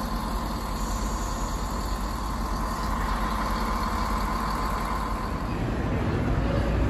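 ScotRail Class 158 and Class 170 diesel multiple units moving through the platform, their underfloor diesel engines running with a steady drone and a high whine. About five seconds in this gives way to a lower, louder rumble.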